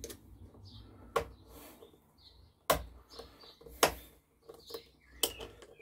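Small screwdriver working screws out of a two-stroke blower vac's plastic housing: several sharp clicks a second or so apart, with faint squeaks between them.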